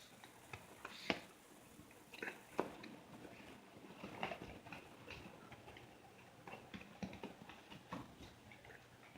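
Faint, scattered light clicks and taps of small dogs moving about and scrabbling close by, with two sharper taps about one and two and a half seconds in.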